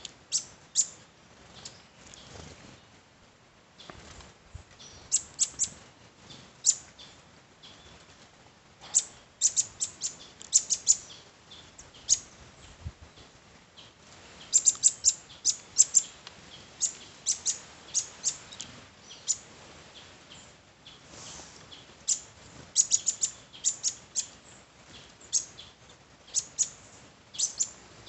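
A flock of green-headed tanagers calling: many short, high, thin chirps, coming in quick clusters of several at a time.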